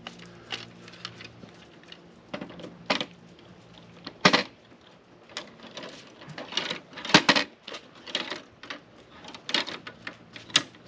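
Irregular clicks and knocks as parts of a table saw are handled and fitted, with the sharpest knocks about four and seven seconds in. A faint steady hum runs under the first few seconds.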